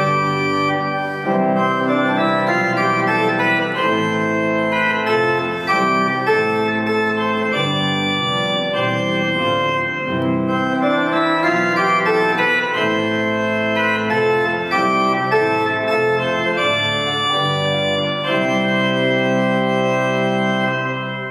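Vleugels pipe organ playing a chorale-based piece in full chords over a bass line, ending on a long held chord near the end.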